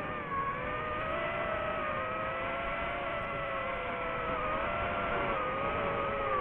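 DJI FPV drone's motors and propellers whining in flight, heard from the drone's own microphone. The pitch wavers up and down with throttle, dipping briefly just after the start and sinking near the end, over a steady rush of noise.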